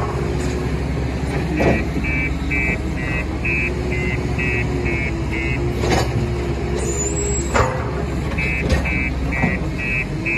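JCB 530 telehandler's diesel engine running under load, with its reversing alarm beeping about three times a second. The beeping stops for a few seconds midway, then starts again. A few sharp knocks cut through the engine noise.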